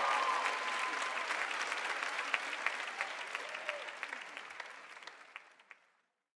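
Large audience applauding, dense clapping that fades away and cuts off just before the end.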